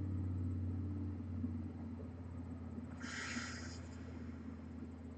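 Steady low hum of room noise, with one short breathy exhale about three seconds in.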